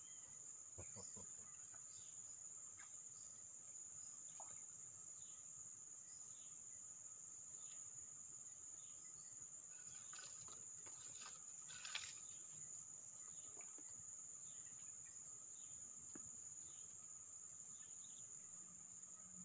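Faint, steady high-pitched buzzing of insects in the forest, with scattered short falling chirps over it. A couple of faint clicks come a little past halfway.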